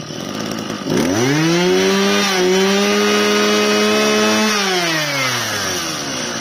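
Mitsubishi TL26 two-stroke brush-cutter engine running at idle. About a second in it is revved up sharply and held at high speed for about three and a half seconds. It then eases back down to idle.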